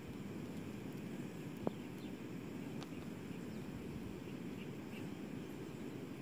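Outdoor ambience: a steady low rushing of wind on the microphone, with faint high chirps and two sharp clicks about two and three seconds in.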